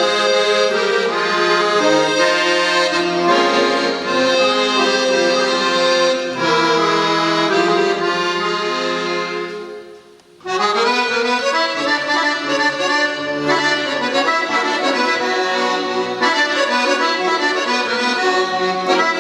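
Accordion playing a Ukrainian folk melody with no singing. It fades out about ten seconds in, ending the first song, and after a brief pause starts a new instrumental introduction to the next song.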